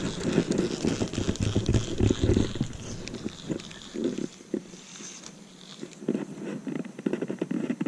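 Handling noise from a spinning rod and reel worked right next to the camera's microphone: irregular rumbling and knocking with small clicks, louder in the first half and dying down near the middle before picking up again.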